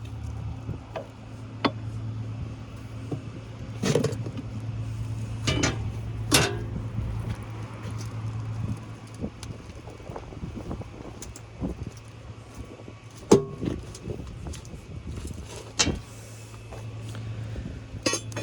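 Hammer striking a chisel against the soft lead connectors on a forklift battery's cells, about ten separate sharp hits at irregular intervals, the loudest about 13 seconds in. A steady low hum runs underneath.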